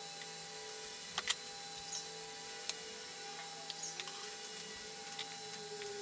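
Small handwork on a lamp's electrical wire: a few sharp clicks and ticks of wire and a small hand tool being handled, two close together early on and others spaced a second or more apart, over a faint steady hum.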